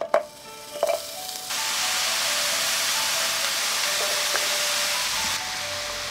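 Two sharp metal clinks of tongs against the frying pan, then thinly sliced beef brisket frying in the hot pan with a steady, loud sizzle from about a second and a half in, easing a little near the end.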